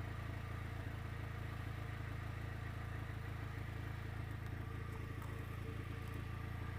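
Engine idling steadily with a low, even hum, the likely source of the carbon monoxide. No alarm sounds from the carbon monoxide detector under test.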